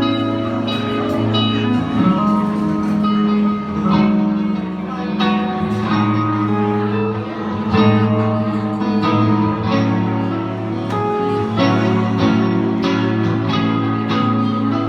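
Live band music led by guitar, with a steady bass line and regular drum hits.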